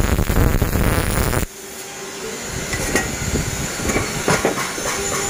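MIG welding arc on steel crackling and spitting for about a second and a half, then cutting off abruptly. After that comes a quieter hiss with a steady hum and scattered crackles.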